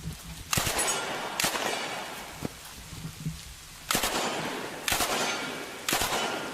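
Gunshots over steady rain: five loud reports, two about a second apart, then after a pause three more a second apart, each trailing off in a long echo.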